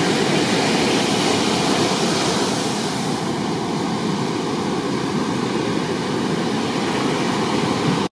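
Ocean surf: waves breaking and whitewater rushing in a steady, loud wash of noise.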